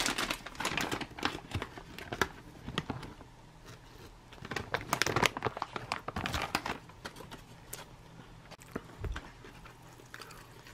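Crinkling of a clear plastic ration pouch holding rehydrated freeze-dried rice as it is handled and opened, with small scattered clicks. The crinkling comes in bunches near the start, around two seconds in, and again about five to seven seconds in.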